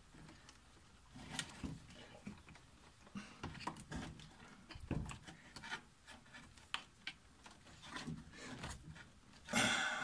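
Faint scattered rustles and light clicks of hands handling a wiring harness and plastic fittings inside a washing machine's open base, with a louder rustle just before the end.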